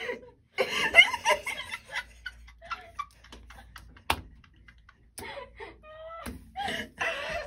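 Laughing and giggling voices, with a quieter stretch of scattered light clicks in the middle and one sharp click about four seconds in.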